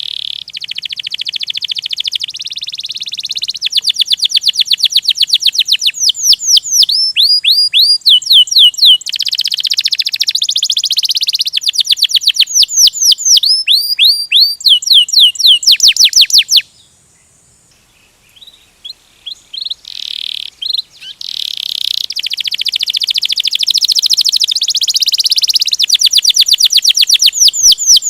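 Domestic canary singing a loud rolling song (ngerol): long, fast trills of repeated chirps and sweeping notes, one phrase after another. The song breaks off about two-thirds of the way through for a couple of seconds, then starts again with short notes that run into more trills.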